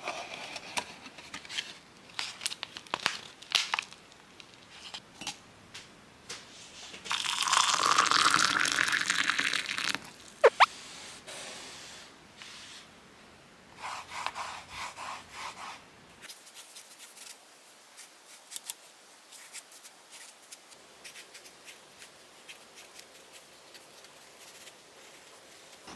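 Rustling and tapping as a cardboard tea box is handled, then a few seconds of pouring whose pitch rises as a mug fills, followed by a sharp clink. Later comes a pencil scratching and tapping faintly on notebook paper.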